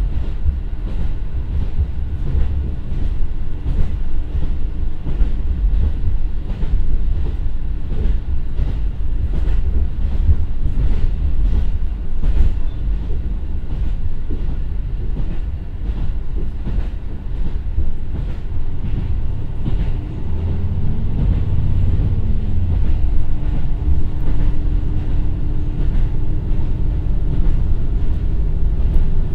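Cabin running sound of a JR Hokkaido KiHa 150 diesel railcar, powered by a Komatsu 450 PS turbo diesel engine, travelling at around 60 km/h: a continuous low rumble of engine and wheels, with rail-joint clicks at regular intervals. A humming tone wavers about twenty seconds in, then holds steady.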